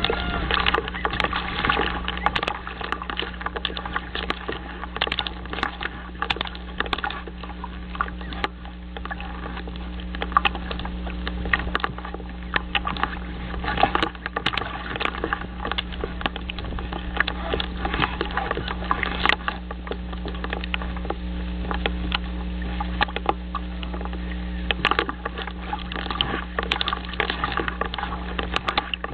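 Dense, irregular crackling and clicking over a steady low hum, the noise of an outdoor nest-camera microphone.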